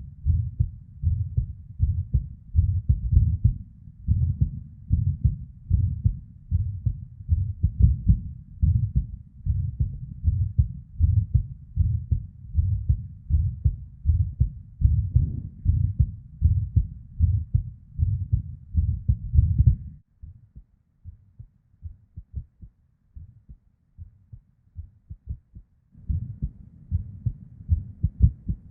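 A woman's heartbeat recorded from inside the chest: a run of low beats with a blood-flow murmur. It is an irregular heart given to ectopic beats (PVCs). About twenty seconds in the sound drops sharply quieter for several seconds, then returns.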